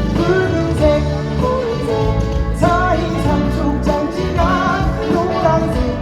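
Live pop-rock band performance, a male singer's vocal line over guitar and a steady band accompaniment.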